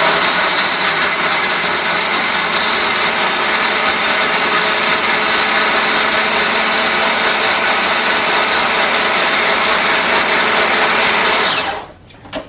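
Countertop blender running at full speed, blending a load of candy into a drink: a loud, steady motor noise with a high whine over it, which cuts off suddenly near the end.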